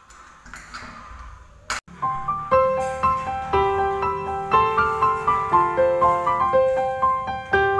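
Background piano music with a steady run of notes, starting about two seconds in just after a brief click. Before it there is only faint room noise.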